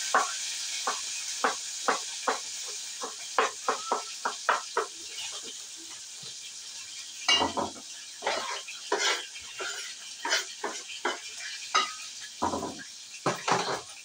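Food sizzling in a frying pan, the hiss slowly fading, with a string of irregular sharp knocks and clinks of kitchen utensils against pan, plate or board.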